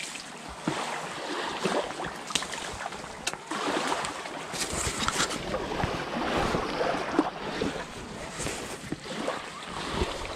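Dry dead branches and brush crackling, snapping and rustling as someone pushes and climbs through them, with scattered sharp snaps and footfalls on sand.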